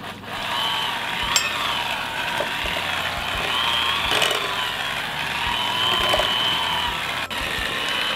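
Electric hand mixer running, its beaters churning mashed purple sweet potato in a glass bowl. The motor's whine switches on just after the start and holds, wavering slightly in pitch.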